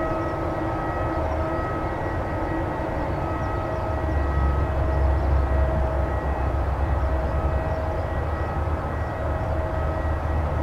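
Airbus A320-200 airliner on final approach, its jet engines a steady distant rumble with faint high tones that come and go. It grows louder and deeper about four seconds in.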